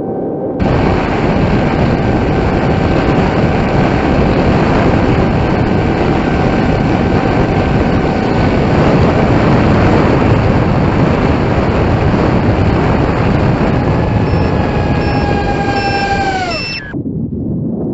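Heewing Ranger T1 electric RC plane in flight: wind rushing over the onboard camera's microphone, with the electric motor and propeller whine as a steady tone underneath. Near the end the whine drops steeply in pitch as the motor spins down, and then the sound cuts off.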